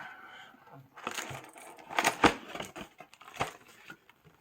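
Plastic packaging of a hockey card hobby box crinkling and tearing as the box is opened, in irregular sharp crackles, the loudest about two seconds in and another near the end.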